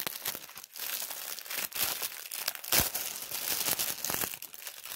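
Plastic packaging crinkling and rustling as items are handled and pulled from a cardboard box, with one sharper click a little under three seconds in.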